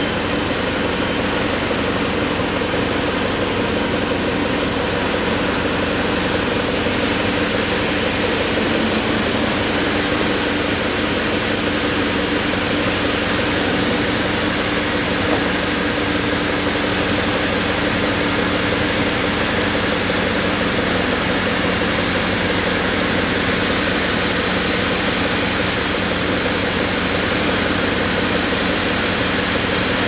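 Log band saw and sawmill machinery running with a steady, loud mechanical noise that holds level without a break.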